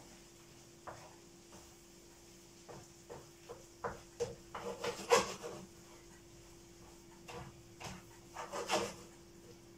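A cooking utensil scraping and knocking in a frying pan of onions and lardons as they are stirred: a scatter of short clicks and scrapes, busiest around the middle and again near the end.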